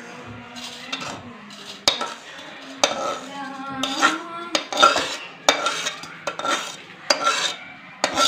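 A metal spoon scraping and knocking against a steel kadhai as roasted semolina is emptied into a steel bowl: a run of irregular scrapes and ringing metal clinks.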